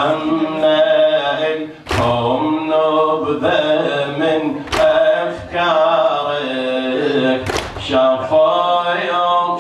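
A man chanting an Arabic lathmiya, a Shia mourning elegy, in a drawn-out melodic voice through a microphone. A sharp slap of rhythmic chest-beating (latm) lands about every three seconds, three times.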